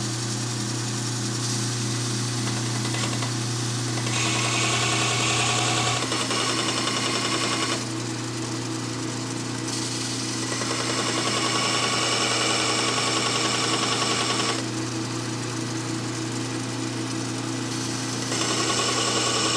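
Home-built 1-by-30-inch belt sander running with a steady motor hum while the steel kickback pawls of a biscuit joiner blade are ground on a regular sanding belt. The grinding hiss swells and drops several times as the blade is pressed to the belt and eased off.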